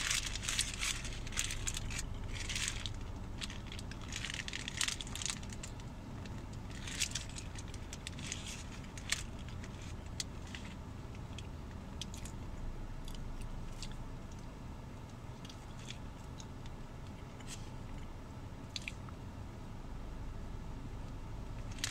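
Paper burger wrapper crinkling in the hands, with bites and chewing of a burger. The crinkling comes in bursts through the first eight seconds and gives way to scattered small clicks, over a steady low hum.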